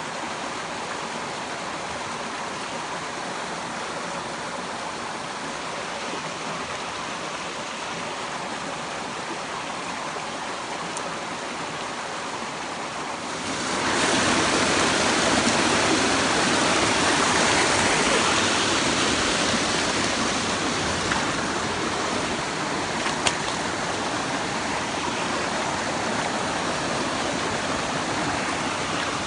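Mountain stream water rushing over rocks, a steady noise that grows clearly louder about halfway through, as of closer rapids, with a faint click near the end.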